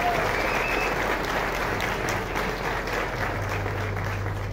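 Audience applauding: many hands clapping in a steady patter that eases slightly toward the end.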